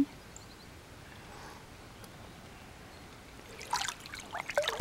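Water splashing and sloshing in an inflatable paddling pool: a faint hush at first, then a quick cluster of short splashes near the end.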